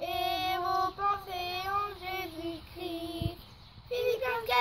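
Children singing a slow tune with long held notes. About four seconds in, the phrase jumps higher and the notes become shorter.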